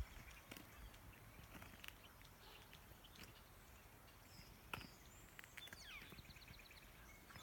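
Quiet outdoor air with distant birds calling: short chirps about four and a half seconds in and a quick trill around six seconds. A few soft clicks of footsteps, the sharpest just before the trill.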